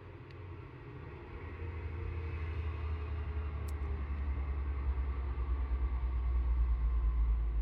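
A low rumble that grows steadily louder throughout, with one small sharp click about three and a half seconds in.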